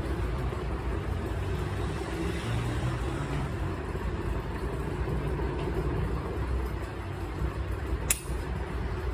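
Steady low rumble of background noise, like passing traffic or an engine, with a single sharp click about eight seconds in.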